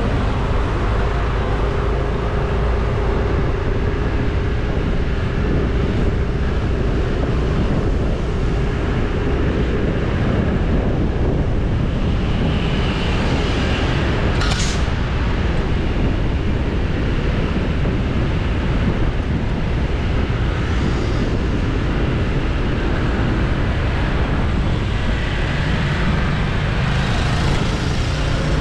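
A moving Yamaha motor scooter: steady wind rush and road and engine noise on a camera held out beside the rider. A brief sharp high sound comes about halfway through.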